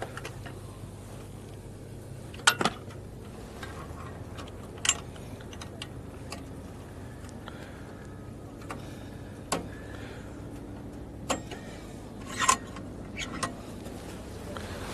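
Scattered sharp metallic clicks and clinks, about seven in all with the loudest near the end, as the fittings and hose of a portable camping stove on a stainless-steel folding table are handled and connected. Under them runs a low steady rumble of wind on the microphone.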